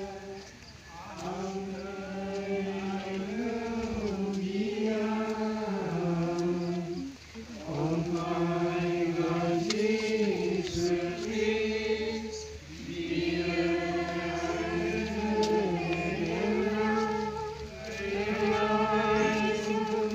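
A group of voices singing a slow hymn together in unison, in long phrases with short breaks for breath.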